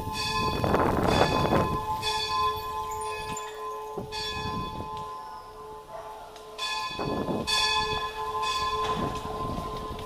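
Church bells ringing, struck again and again, with a steady hum left sounding between strikes. Under them is a low rumble of wind and tyres on stone paving, loudest at the start and again about seven seconds in.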